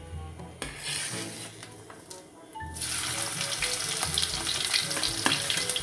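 Chopped onion dropped into hot oil in a stainless steel kadhai, the oil breaking into a dense sizzle that starts suddenly about three seconds in and carries on frying. A few sharp clinks of the spatula on the plate and pan come before it.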